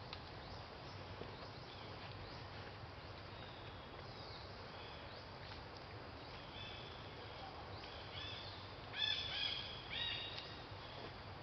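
Short, high-pitched animal calls repeating over a steady outdoor background hiss, loudest in a cluster of calls about nine to ten and a half seconds in.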